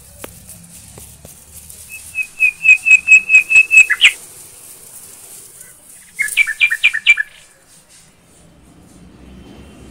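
A bird calling: a run of about ten quick, repeated high notes lasting about two seconds, then a shorter run of about five double notes about six seconds in.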